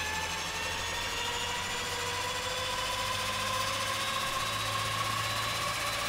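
Grumman-Schweizer Super B Ag-Cat's turboprop engine running and spooling up just after a cold start, its whine rising slowly and steadily in pitch over a low steady hum.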